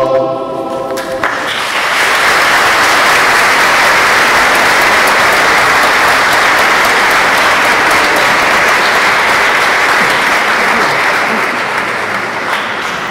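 A choir's final held chord cuts off about a second in, and the audience breaks into steady applause that eases off near the end.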